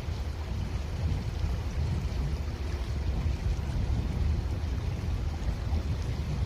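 Creek water running, a steady rushing noise dominated by a low, fluttering rumble.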